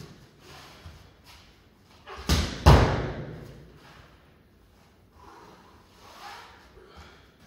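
A thrown training dummy landing with two heavy thuds in quick succession, about two and a half seconds in.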